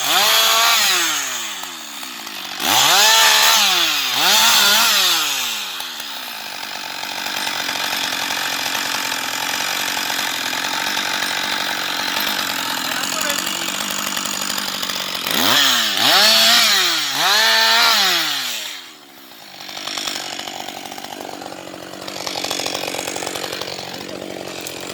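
Husqvarna 560XP two-stroke chainsaw revved up and back down in short bursts several times, with a stretch of steadier running between the revs. It drops to a lower, quieter idle about 19 seconds in.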